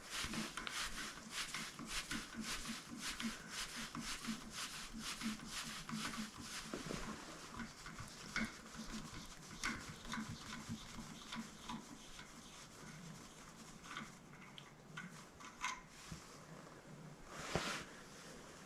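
A 1/4-20 hand tap being worked down a crusty threaded hole to clean out the threads: a quick run of scraping clicks, about three a second, that thins to scattered clicks in the second half, with a louder scrape near the end.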